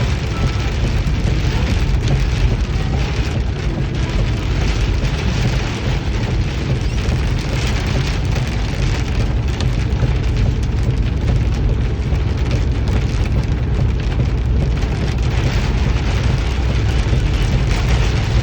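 Steady heavy rain: a continuous, even hiss with a deep rumble underneath.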